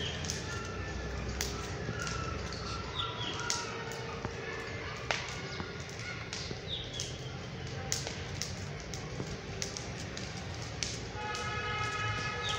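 Small knife slicing fresh ginger into thin strips held in the hand, giving scattered small crisp clicks at irregular intervals, over a steady background hum with a few short bird chirps.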